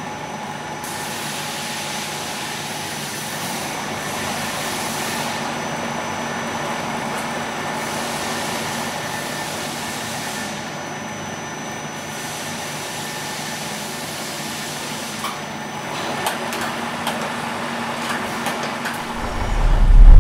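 Hurco VMX64/40T vertical machining center running: a steady mechanical hum with a few held whining tones, and a hiss that rises and falls every few seconds. A few light clicks come near the end, then a deep boom at the very end.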